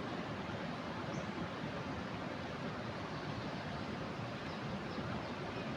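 Steady, even rush of a flooded river's water, with no breaks or rhythm.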